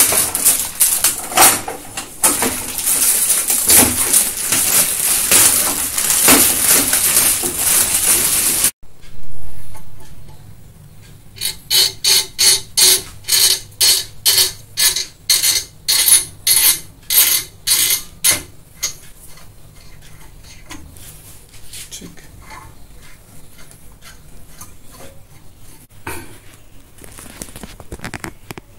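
Plastic wrapping crinkling and rustling loudly as it is pulled off a gas cooktop's pan supports, with light clinks of metal, for the first third and stopping abruptly. Then a run of sharp, regular clicks, about two a second, lasting several seconds, followed by quieter scattered knocks.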